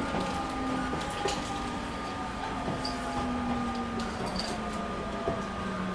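Interior running sound of a 209 series 3000 electric train's motor car, with the Mitsubishi GTO VVVF inverter and traction motors whining in several tones that fall slowly in pitch as the train slows, over a steady rumble of the wheels and a few faint clicks.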